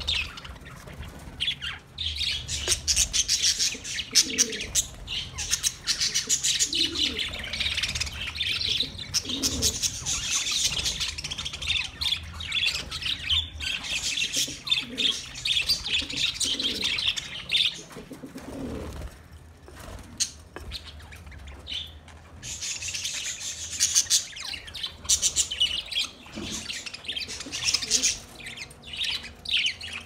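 A flock of budgerigars chattering, with dense, rapid chirps and warbles that thin out for a few seconds about two-thirds of the way through before picking up again.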